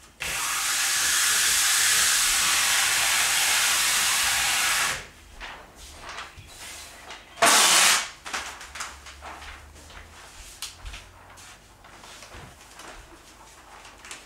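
Skirting-board masking being pulled off a roll on a dispenser stand: a long, steady ripping hiss for nearly five seconds, then a shorter, louder rip about seven and a half seconds in, followed by faint rustling and crinkling as the strip is handled.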